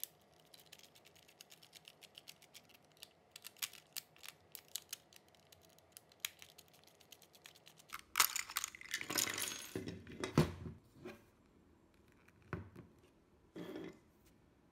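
Small screwdriver and loose screws clicking faintly against a plastic power-tool battery pack. About eight seconds in, louder scraping and clacking begins as the pack's plastic case halves are worked apart, lasting around three seconds. Two short knocks follow near the end.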